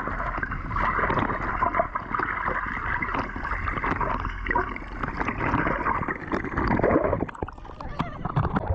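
Water gurgling and sloshing close to the microphone, with many small crackles.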